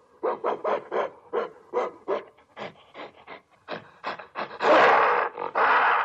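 Gorilla vocalizing: a quick run of short grunts, about four a second, then two loud roars near the end.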